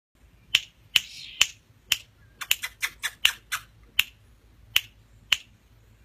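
A series of about fifteen sharp, short clicks at uneven spacing, with a quick run of them about halfway through.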